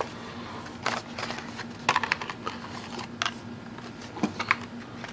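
Plastic packaging and small plastic parts being handled and set down: an irregular scatter of sharp clicks and short rustles, over a faint steady hum.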